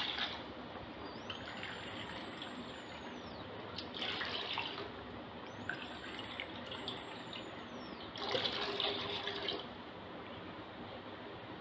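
Water poured by the cupful into a pan of sambar, splashing into the liquid in separate pours: one as it begins, one at about four seconds and a longer one at around eight to nine and a half seconds.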